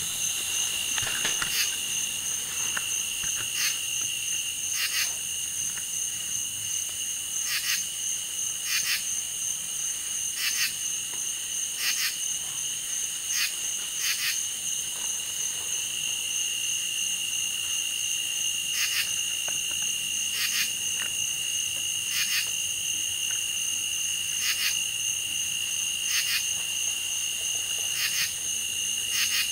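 Summer evening insect chorus: steady high-pitched trilling and buzzing, with short chirps repeating every second or two.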